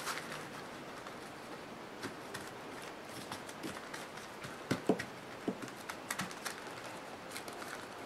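Light, scattered taps and clicks of a paintbrush and small craft pieces being handled on a tabletop as Mod Podge is dabbed on, with a couple of louder knocks about five seconds in.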